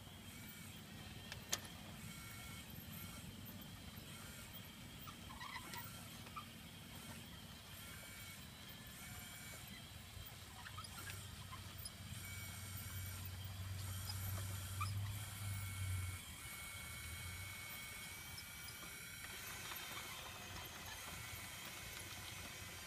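Radio-controlled model Cat D11 bulldozer working in loose dirt: a low hum from its drive that swells in the middle and cuts off about two-thirds of the way through, over faint steady high whines. A single sharp click about a second and a half in.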